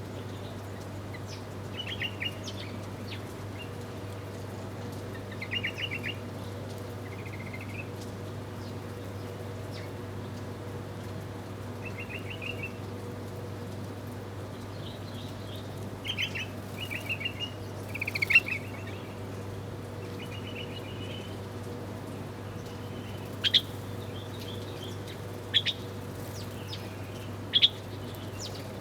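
Small birds chirping in short, rapid trills every few seconds, with a few sharp single chirps near the end. A steady low hum runs underneath.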